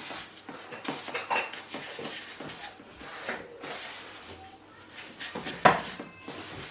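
Silicone spoon stirring a powdery mix of baking soda, citric acid and washing-up liquid in a mixing bowl: irregular scraping and light knocks against the bowl, with one sharper knock about five and a half seconds in.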